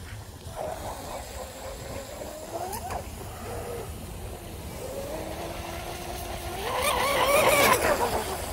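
Brushless electric motor of a fast RC boat whining as it runs on the water, its pitch rising and falling with the throttle and growing louder and higher near the end. Wind rumbles on the microphone underneath.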